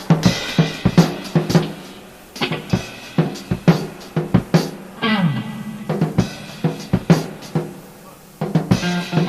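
Improvised rock jam, raw and unmixed: a drum kit keeps a steady beat with bass drum, snare and cymbals over held pitched notes from the band. About five seconds in a note slides down in pitch, the playing thins briefly near eight seconds, and then the full beat comes back in.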